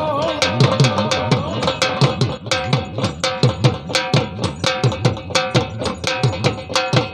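Amplified devotional folk music in an instrumental passage: a fast, steady drum rhythm under a held melodic note, with the singing voice dropping out in the first second or two.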